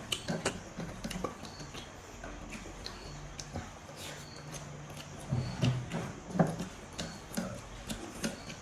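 Close-up eating sounds: chewing meat with wet mouth smacks and clicks, louder chewing bursts about five to six and a half seconds in.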